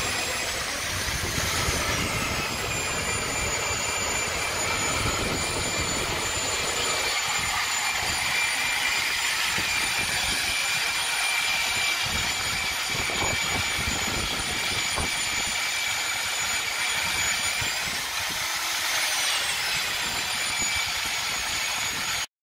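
Electric motor of a floor-mounted diamond core drill running steadily while an 8-inch core bit grinds through Tyndall limestone, with a high motor whine over the grinding. The whine's pitch swings briefly about two seconds in and again near the end, and the sound cuts off suddenly.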